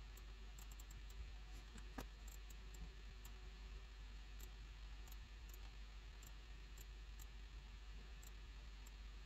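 Faint computer mouse clicks, irregular and a few per second, over low room hiss, with a somewhat sharper click about two seconds in.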